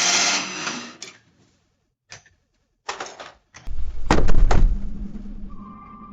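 Mechanical cash register sounds: a noisy rattle that fades within about a second, a couple of short clicks, then a heavy clunk with a low rumble and sharp clicks, like a cash drawer shooting open, and a steady ringing tone that starts near the end.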